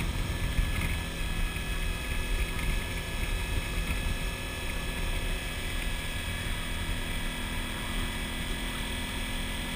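Motorcycle engine running steadily at a constant cruise, mixed with wind noise on the microphone.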